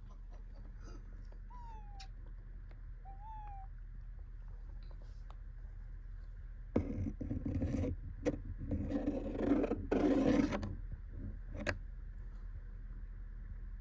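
A cat with a silver vine stick: two faint, short, gliding cat calls early on, then about four seconds of loud rustling and scraping from about halfway through, with a sharp click or two.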